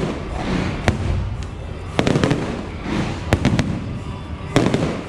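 Aerial fireworks shells bursting overhead: a series of sharp bangs, about five, over a continuous low rumble and crackling.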